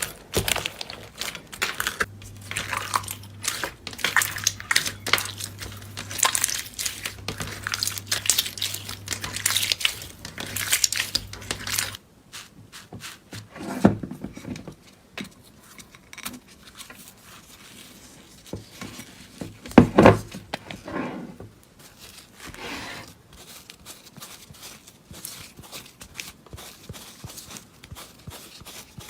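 Slime being squeezed and worked by hand, giving dense crackling and popping. About twelve seconds in it turns sudden quieter and softer, with two dull thuds.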